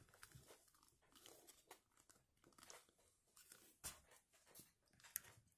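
Faint handling noises: plastic clicks and light rustling as a small PVC figure is pressed onto its plastic display stand, with a sharper tap about four seconds in as the stand is set on the table and another just after five seconds.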